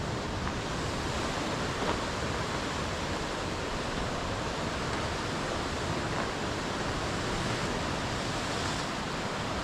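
Steady wash of ocean surf, mixed with wind.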